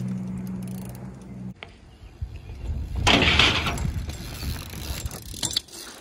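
BMX bike riding on skatepark ramps. A steady low hum cuts off abruptly about one and a half seconds in. About three seconds in there is a loud rush of tyre noise on the ramp surface, followed by a few clacks and knocks of the bike near the end.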